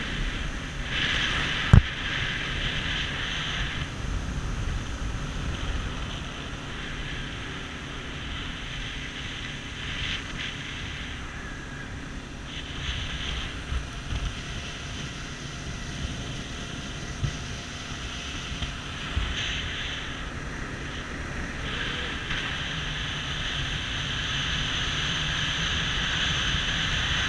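Small motorboat under way: a steady engine drone with water rushing along the hull and wind buffeting the microphone, the rushing swelling and fading. A single sharp knock about two seconds in.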